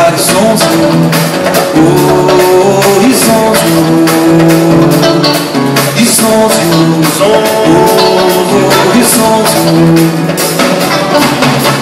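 Live Brazilian popular music: male voices singing a melody over strummed acoustic guitar, electric bass and hand percussion.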